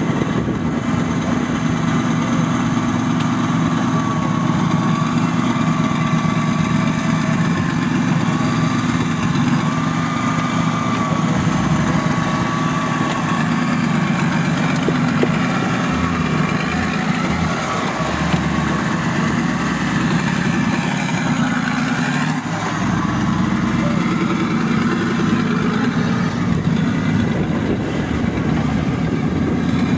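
Engine of a modified off-road 4x4 running steadily at idle close by.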